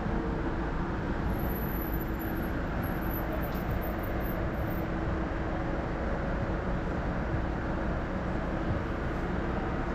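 Busy city street traffic: a steady rumble of passing vehicles with a faint, steady engine hum.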